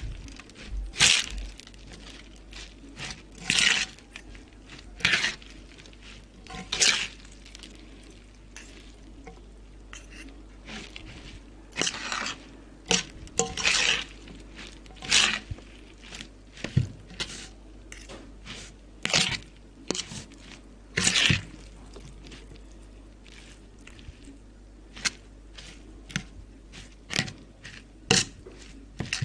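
Eating sounds of Indomie instant noodles mixed with Cheetos: irregular crunching, chewing and scraping, in short sharp bursts every second or two.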